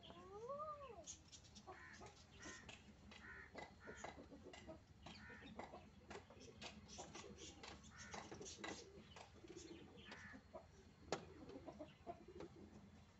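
Faint clucking of chickens and other bird calls, with one drawn-out call near the start that rises and then falls in pitch. A single sharp click comes about eleven seconds in.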